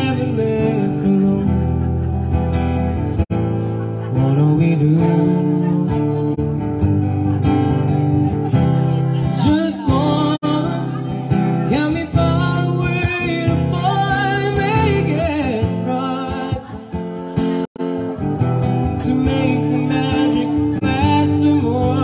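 Live acoustic guitar being played, amplified through a PA, with a man's voice singing a melody over it, most plainly in the middle stretch.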